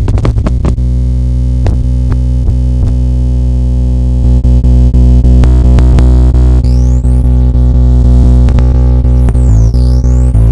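Loud electronic synthesizer sound: a steady low drone with many sharp clicks. About two-thirds of the way in, high tones begin sweeping repeatedly up and down.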